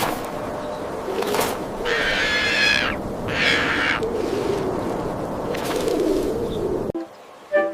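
Birds calling over a steady outdoor background, with two short high calls about two and three and a half seconds in; the sound cuts off abruptly near the end.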